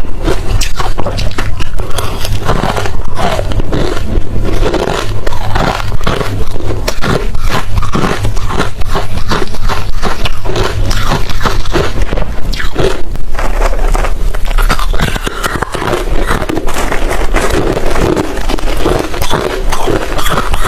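Close-miked biting and chewing of hard refrozen crushed ice: a rapid, continuous run of loud crunches and scraping cracks.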